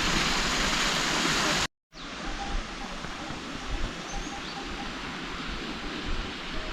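Heavy rain, a loud steady hiss, breaks off abruptly under two seconds in. Quieter, steady rain and wind noise follows.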